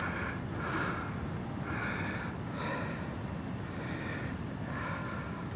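Low wind rumble on the microphone, with short breathy hissing bursts close to it about once a second.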